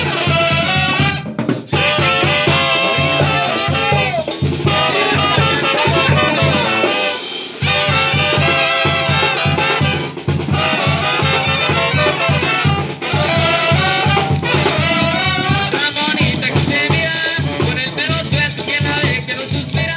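A Mexican brass banda plays live: trumpets and trombones carry the melody over a sousaphone bass line and a steady beat on bass drum, snare and cymbal. The beat breaks off briefly about seven seconds in.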